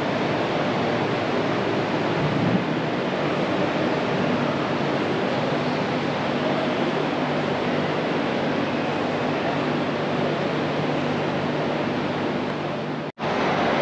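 Steady background din of a busy car show: a dense wash of indistinct crowd voices over a low hum. It drops out for an instant near the end.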